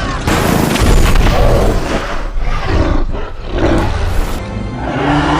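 Movie soundtrack mix: music under a large creature's roar, with booming impacts; the sound changes abruptly a couple of times.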